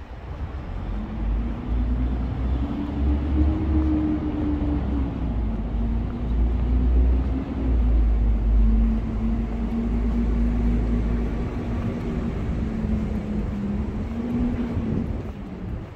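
A motor vehicle's engine running close by, a steady hum over low rumble that rises slightly a few seconds in, then settles lower and fades out near the end.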